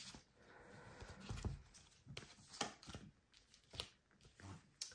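Tarot cards being shuffled and handled: a soft rustle of cards in the hands, then a few quiet sharp taps about a second apart as a card is drawn and the deck is set down.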